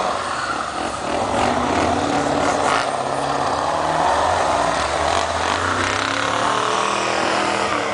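Pickup truck engine revving hard under load, its pitch rising and falling, as the truck ploughs through slush and water with the rush of spray.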